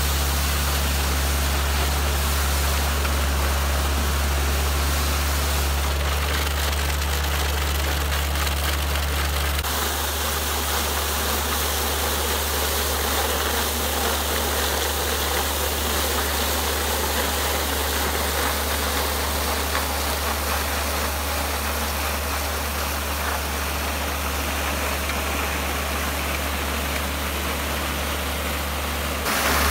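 Tractor engine running while a front-mounted triple rotary steel weed brush spins against the ground, the steel bristles scraping soil and paving in a steady hiss. The low engine hum changes about ten seconds in.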